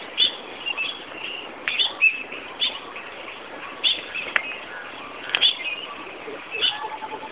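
Ashy woodswallow calling: short, high chirps, roughly one a second, over a steady hiss.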